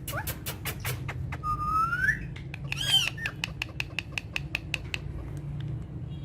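Pet parrots calling: a rising whistle about a second and a half in, a short harsh squawk near the middle, and runs of sharp clicks, about five a second in the second half, over a low steady hum.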